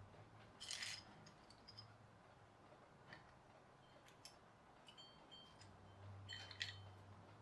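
Faint clicks and clinks of small plastic building-block parts being handled, fitted together and picked from a pile, with a quick cluster about a second in and a louder one near the end.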